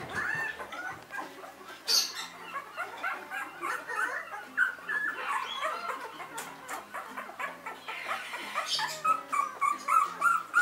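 Newborn Old English Sheepdog puppies squeaking and whimpering in many short, high, rising-and-falling cries, more of them near the end, with a single knock about two seconds in.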